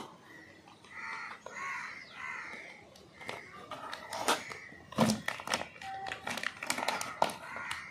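Plastic vacuum-pack bag crinkling and crackling as it is handled, in short sharp crackles through the second half. Crows cawing faintly in the background near the start.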